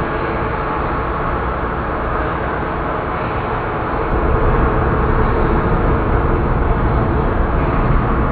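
Rain recording reworked into a dark horror drone: a dense, steady noise wash with faint held tones beneath it. The deep rumble swells louder about four seconds in.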